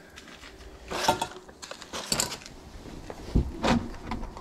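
A few short rustling and clicking handling noises, with a dull thump about three and a half seconds in.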